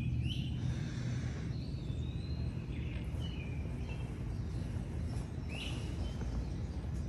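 Wild birds calling outside a tent: several short rising calls and one longer held note, over a steady low rumble.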